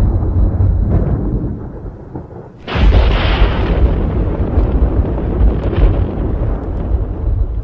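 Thunder: a rumble dies away, then a sudden close thunderclap cracks about three seconds in and rolls on as a long, loud low rumble.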